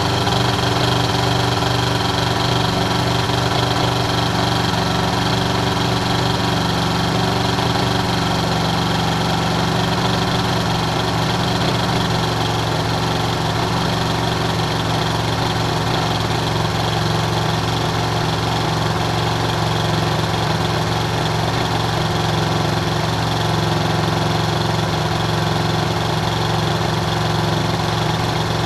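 Flexwing microlight trike's engine idling steadily while the aircraft stands still, with the propeller turning.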